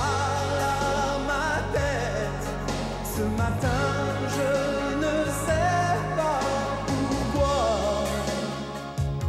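1980s French pop song playing: a sung melody, wavering in pitch, over bass and instrumental backing.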